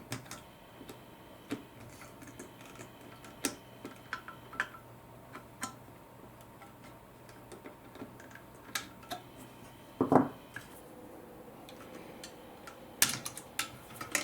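Scattered light clicks and taps of the Dyson V10 vacuum's plastic parts and wire connectors being handled and pushed into place, with a louder knock about ten seconds in and a few more near the end.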